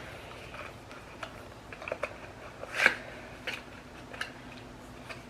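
Small hard makeup items and their packaging being handled, giving scattered light clicks and taps. The loudest click comes about three seconds in.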